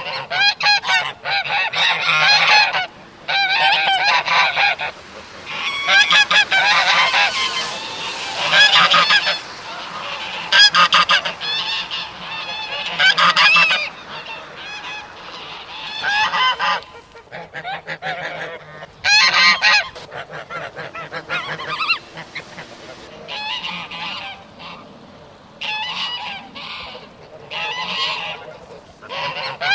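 A group of geese honking in repeated bouts, many harsh calls overlapping, with short lulls between the bouts.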